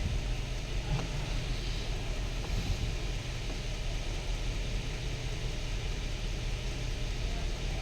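Nissan Patrol engine idling steadily with a misfire, which the scan tool logs on cylinder 2 of both banks; the mechanic suspects the spark plug coils.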